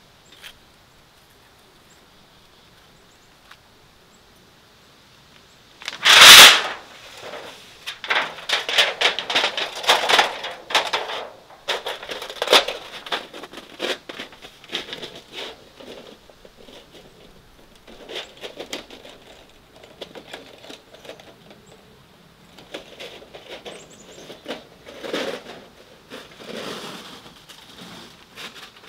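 A wood stove's metal chimney pipe being handled at a tent door: a string of irregular scraping clinks and rustles. A loud sudden knock or rustle about six seconds in precedes them, and a faint steady high hiss runs under the quiet opening seconds.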